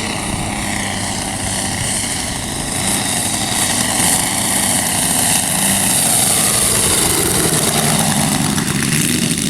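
Model airplane engine running, its pitch gliding down through the middle, with a strong hiss that grows louder about three seconds in.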